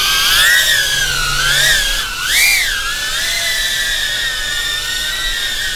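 Ducted micro FPV quadcopter in flight, its motors and props whining at a high pitch that wavers up and down with the throttle, with a quick rising-and-falling surge about two and a half seconds in.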